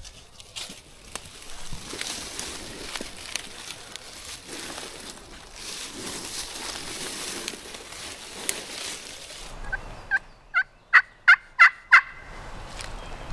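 A steady rushing noise, then near the end a series of about six turkey yelps, each louder than the last.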